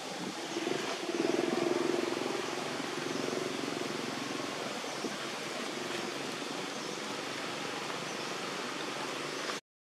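Steady outdoor background noise with no single clear source, with a low hum that swells about a second in and fades by about four seconds. The sound drops out abruptly just before the end.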